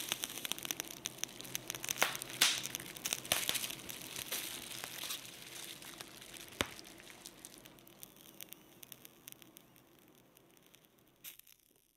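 Wood campfire crackling, with irregular sharp snaps over a soft hiss. The sound fades gradually and stops shortly before the end.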